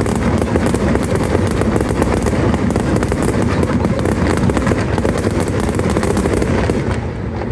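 Fireworks display in a dense barrage: many bursts and crackles packed into a continuous rattle, easing off slightly near the end.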